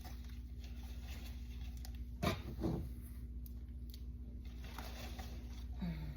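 Polyfill stuffing being pushed in among a potted plant's leaves in a cardboard box: soft rustling and patting, with two louder bumps a little over two seconds in, over a steady low hum.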